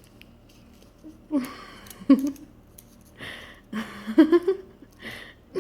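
Short wordless vocal reactions, about four in all and starting about a second in, from someone chewing a jelly bean they find bad-tasting.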